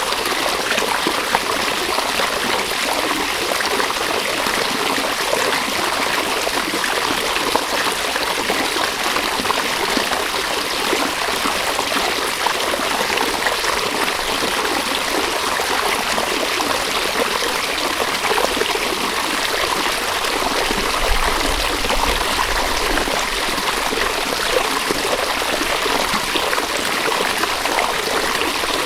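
River water flowing steadily, a continuous, even babble of running water.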